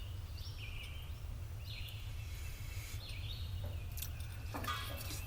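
Steady low hum with several short, high chirping calls, and a brief rattle about four and a half seconds in.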